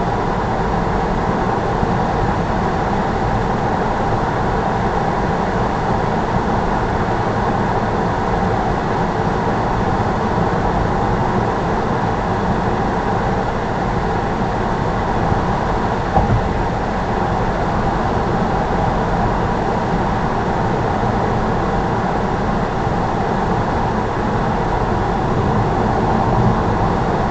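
Steady road and engine noise inside a car's cabin while driving at speed on an open road, mostly tyre rumble and wind with no change in engine pitch.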